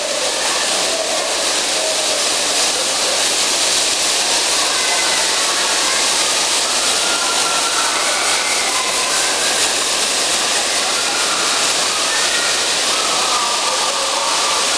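Steady, loud rushing din of a bumper-car rink while the cars are running, with faint voices and shouts under it.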